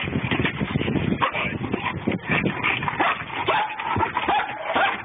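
Police service dog whining and giving short barks, with a rough, dense noise underneath.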